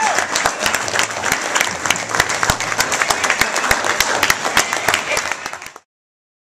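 Audience applauding at a curtain call: a dense, steady clapping of many hands, which cuts off suddenly near the end.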